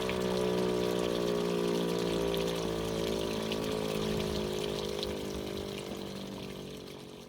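Type E57 electromechanical siren winding down: its tone sinks slowly in pitch and fades away, fastest over the last couple of seconds.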